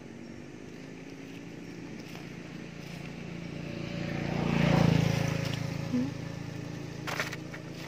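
A motor vehicle's engine running, growing louder up to about five seconds in and then fading away, as a vehicle passing by does. A short knock comes about seven seconds in.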